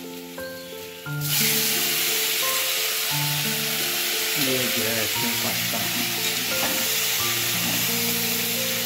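Tomato-and-pea masala sizzling in a steel kadhai on a gas stove as macaroni is tipped in. The sizzle starts suddenly about a second in, jumping much louder, then holds steady.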